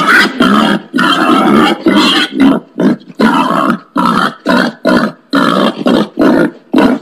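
Wild pig grunting in a continuous series of loud grunts, about two a second.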